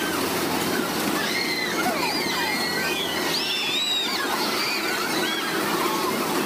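Steady rumbling noise of a carnival horror-train ride car running through its dark tunnel, with a cluster of high squealing glides that rise and fall through the middle few seconds.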